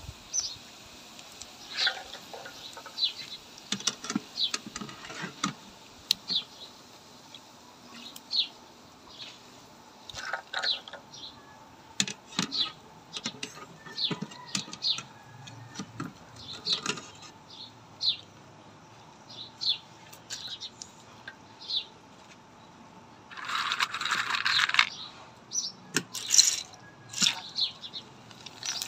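Small birds chirping on and off, with sharp metallic clinks of a wire frying strainer against a metal wok. Near the end, a burst of sizzling as papad goes into hot oil.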